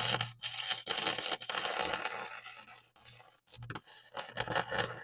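Electric welder tacking steel on a truck's exhaust: a crackling, sizzling arc with a steady electrical hum, held for a couple of seconds, then stopping and restarting in shorter runs.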